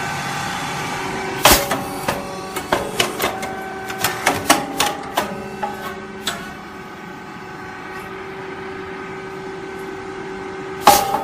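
Shinyoung SYP rice cake popping machine running through its cycle. A sharp pop about a second and a half in and again near the end marks the heated mold opening as a puffed cake is released, with a run of clattering knocks after the first and a steady machine hum throughout.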